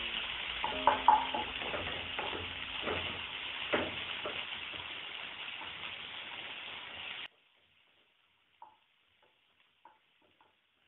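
Chopped onion and cumin sizzling steadily in hot cooking oil in a kadhai, lightly sautéing, with the scrape and tap of a wooden spatula stirring them. About seven seconds in the sizzle cuts off suddenly, leaving near silence with a few faint ticks.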